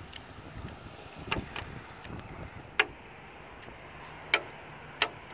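Boiled peanuts being shelled and eaten: five sharp, irregularly spaced clicks over a low background.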